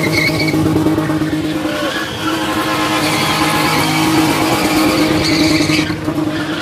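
Box-shape BMW E30 spinning: the engine held at one steady pitch at high revs while the rear tyres spin and screech on the tarmac.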